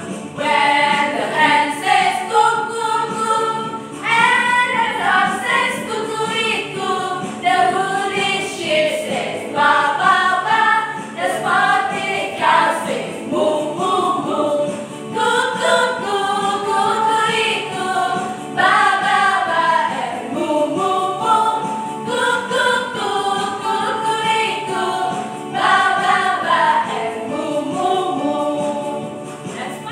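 Women's voices singing a children's action song together in unison, with keyboard accompaniment.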